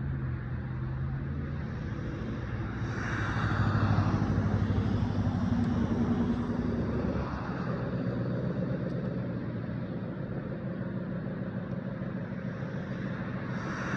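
Road traffic: cars passing, over a steady low hum. One pass swells loudest about three to four seconds in, and another builds near the end.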